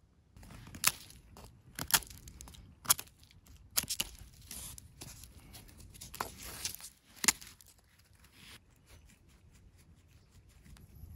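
Dry leaves and twigs rustling and crackling as they are handled on the ground. There are several sharp cracks in the first seven seconds, then lighter ticking after about eight and a half seconds.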